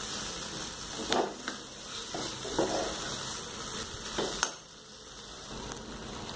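Diced potatoes and onions in masala puree sizzling in a nonstick frying pan while a steel spoon stirs them, with a few sharp scrapes and knocks of the spoon against the pan. The sizzle gets quieter after about four and a half seconds. The masala is being fried until the oil separates.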